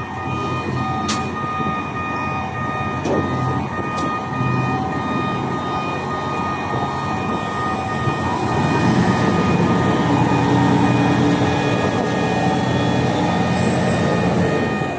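Heavy lifting machinery running steadily with a constant whine, a few sharp clicks in the first few seconds, and getting louder about eight and a half seconds in as the suspended load is handled.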